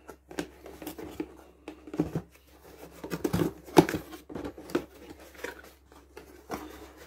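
Small white cardboard box being opened by hand: the tuck flap is pried up and folded back, with scrapes, taps and rustles of cardboard and paper.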